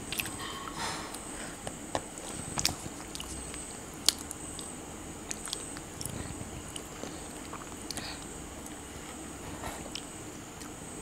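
Close-miked chewing of homemade pizza, with a few sharp crunching clicks scattered through the quiet.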